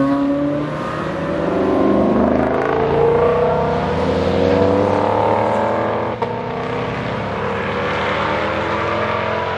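Car engines accelerating on the road, the engine note climbing steadily in pitch over several seconds as the cars drive past.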